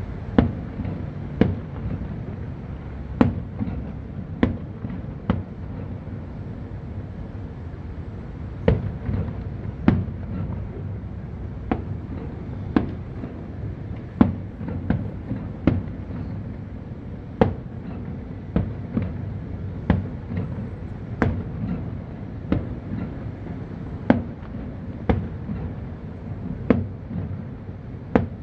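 Aerial fireworks display: shells bursting in an irregular string of sharp bangs, about one a second, over a steady low background noise.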